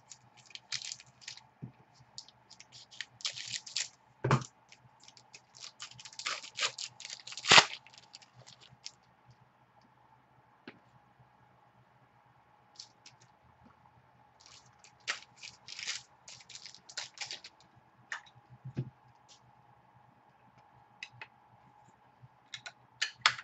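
Trading cards and their packaging handled by hand: bursts of crinkling, rustling and clicks, with two sharper knocks in the first eight seconds and a quieter pause of a few seconds in the middle.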